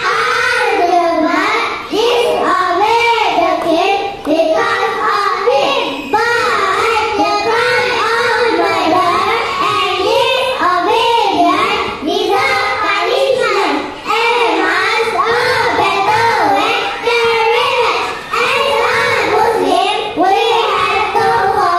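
A large group of young children's voices singing together in unison, in short phrases with brief breaks between them.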